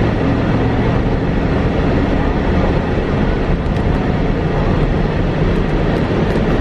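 Steady road and engine noise inside a moving car's cabin: an even low rumble with a fainter hiss above it.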